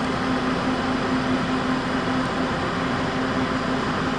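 Van Hool T916 Astron coach standing with its diesel engine idling: a steady, even hum.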